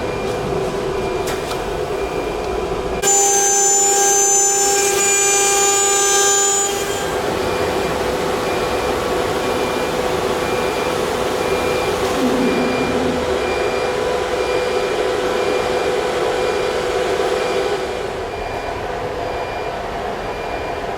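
CNC router machine running: a steady mechanical hum with several steady whining tones. It gets louder and higher-pitched from about 3 to 7 seconds in, then settles back to a steady run.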